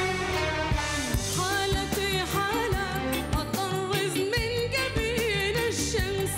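A woman singing an Arabic pop song with vibrato over band accompaniment with a steady beat.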